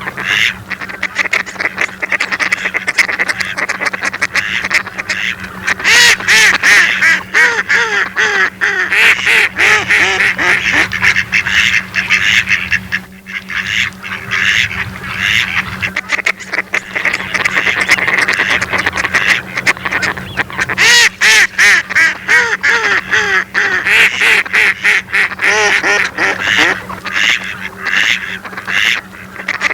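Many mallard ducks quacking, their calls overlapping almost without a break, with a short lull about halfway through.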